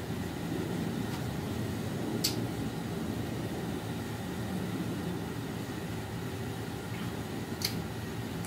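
Steady low background rumble, with two short sharp clicks, one about two seconds in and one near the end.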